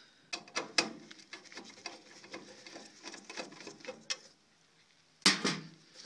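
Scattered clicks and knocks of close handling, with one louder knock about five seconds in.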